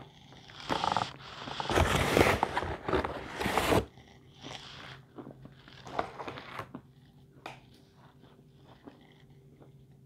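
A paper bag rustling and crinkling loudly for a few seconds, then crunching and chewing of small pieces of chalk in short, scattered bites that fade out.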